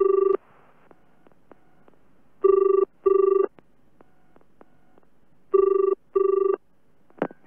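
Telephone ringing with a British-style double ring: three pairs of short rings, each pair about three seconds after the last. Near the end, a couple of sharp clicks as the handset is picked up to answer.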